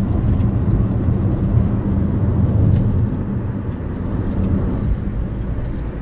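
Steady low rumble of a car driving, with road and engine noise heard from inside the cabin, easing slightly about halfway through.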